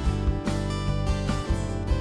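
Background music: a strummed acoustic guitar over a steady beat.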